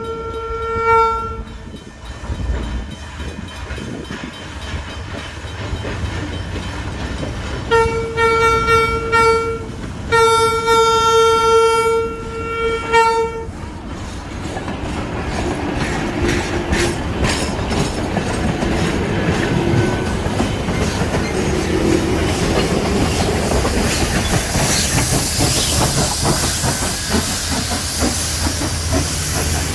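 Train horn on locomotive 643 sounding a short blast that ends about a second in, then two longer blasts of about two and three seconds, about eight and ten seconds in. After that the train runs on the rails with growing rumble and hiss.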